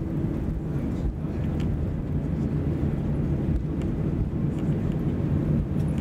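Airbus A320 cabin noise during the landing rollout: a steady low rumble of the wheels on the runway and the engines, heard from inside the cabin over the wing.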